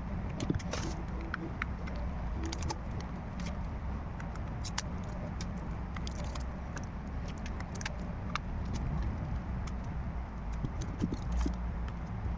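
Scattered small clicks and ticks of handling a smartphone's parts and repair tools, some in quick clusters, over a steady low background rumble.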